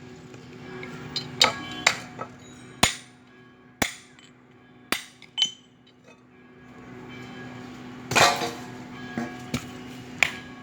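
Hammer blows on the steel casing of a fridge compressor being broken open for scrap: sharp metallic strikes that ring briefly, coming irregularly about once a second, with a longer, noisier clatter about eight seconds in.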